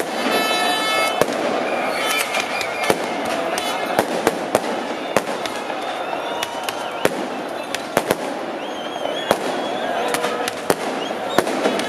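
Firecrackers and fireworks banging irregularly, about twenty sharp cracks, over the hubbub of crowd voices.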